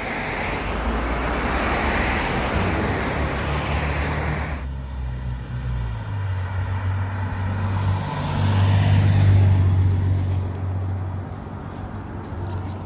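Road traffic: cars passing on the street. A broad rush of tyre and road noise breaks off abruptly about four and a half seconds in, then a car engine's low hum is heard, loudest a little past the middle.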